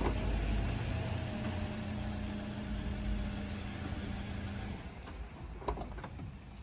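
Car engine idling with a steady low hum, shut off about three-quarters of the way through; a couple of sharp clicks follow.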